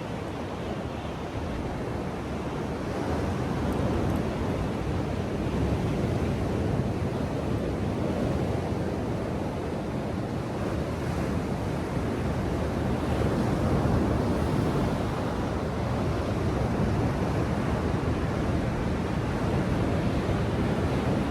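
Ocean surf: waves breaking and washing ashore in a steady rush that swells gently now and then.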